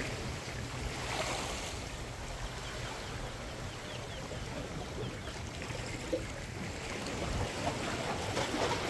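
Small ocean waves washing and sloshing against the boulders of a rocky breakwater, with some wind rumble on the microphone. The surf grows louder near the end.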